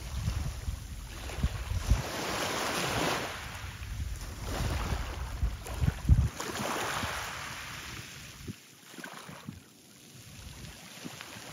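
Harbour waves washing against the shore in surges of a couple of seconds each. Wind buffets the microphone in low rumbles that die down in the second half.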